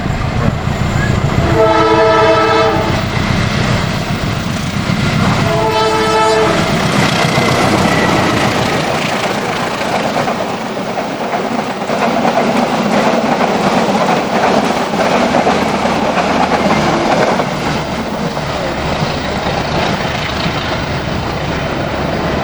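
Indonesian train locomotive horn sounding two separate blasts of about a second and a half each, the first a couple of seconds in, the second about six seconds in. Then the train passes, its wheels clattering over the rails.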